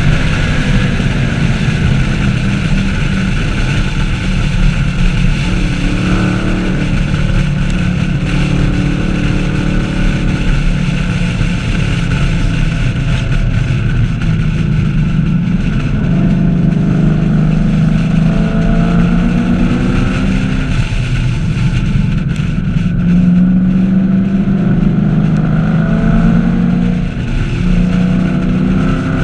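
2014 Chevrolet Camaro 1LE's V8 engine driven hard on a race track, its revs repeatedly climbing and then dropping, over constant wind and road noise.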